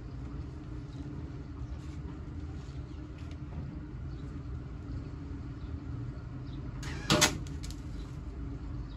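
Steady low hum between welds, broken about seven seconds in by one short crackling burst of a welding arc, a quick tack weld on sheet-metal body panel.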